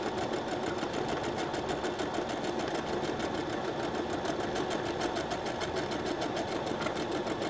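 Brother SQ9130 computerized sewing machine running steadily, its needle stitching a decorative heart-pattern stitch in a rapid, even rhythm.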